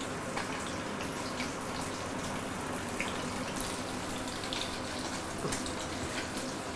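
Small mackerel shallow-frying in hot oil in a pan: a steady sizzle with light crackles and pops.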